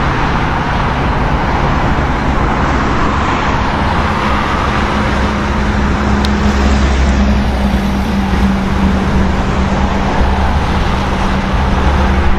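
Steady loud engine roar with a low droning hum underneath, holding level without a clear rise or fade.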